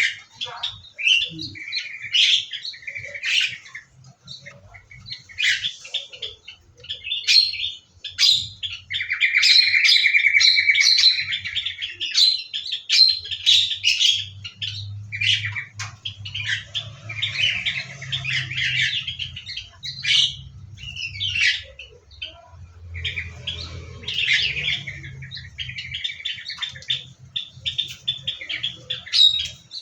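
Many small aviary birds chirping and calling over one another in short, overlapping notes, with one louder, rapid trill about nine seconds in. A faint low hum sits underneath through the middle stretch.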